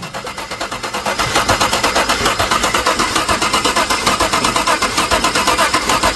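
GMC V8 engine running with a rapid, even pulsing beat. It is misfiring on right-bank cylinder 2, whose hydraulic valve lifter is not working.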